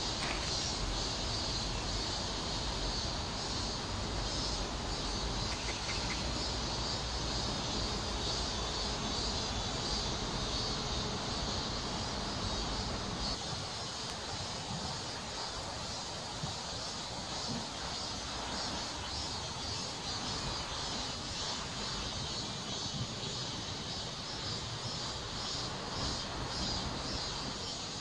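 Steady outdoor background of insects chirring in a continuous high band, over a low rumble that drops away about halfway through.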